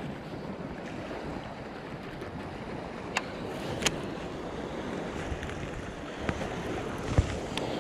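Wind and choppy lake waves washing steadily, with wind buffeting the microphone. A few short sharp clicks stand out, twice around three to four seconds in and twice near the end.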